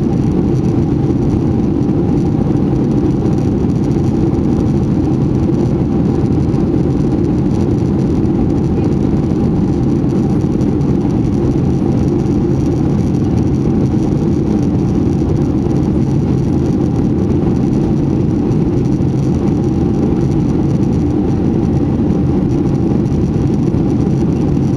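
Loud, steady cabin noise of a Boeing 737-800 in its climb after takeoff: CFM56 engines and airflow heard from inside the cabin as an even low rumble, with a faint steady hum above it.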